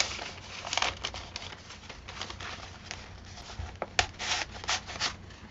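Paper rustling as the pages, tucks and pockets of a handmade junk journal are handled and flipped: several short rustles, with a cluster near the end.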